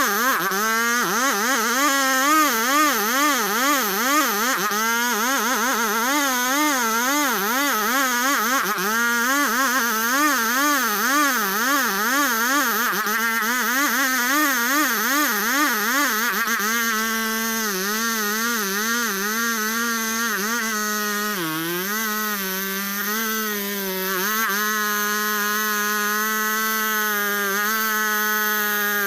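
Engine of a wood-sawing machine running hard under cutting load while sawing ulin ironwood. Its pitch wobbles up and down about once a second, then holds steadier and a little lower from about 17 seconds in, with a brief dip near 22 seconds.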